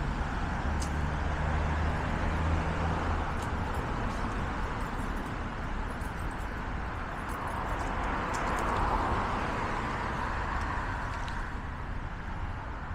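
Road traffic on a busy city street: cars going by with a steady hiss of tyres and engines. A low engine hum sounds for the first few seconds, and a vehicle passes more loudly about eight to nine seconds in.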